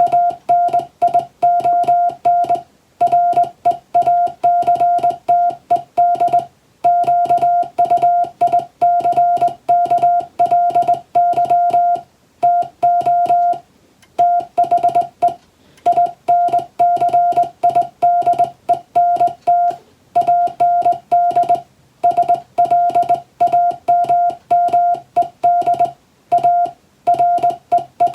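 Morse code (CW) practice signal sending English text: a single steady tone keyed on and off in quick dots and dashes, with short gaps between characters and a few longer pauses between words.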